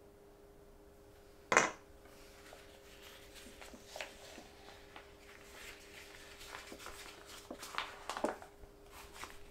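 Kitchen utensils and a bowl being handled while batter goes into a piping bag: one sharp knock about a second and a half in, then scattered light clicks, taps and rustles, busiest near the end, over a faint steady hum.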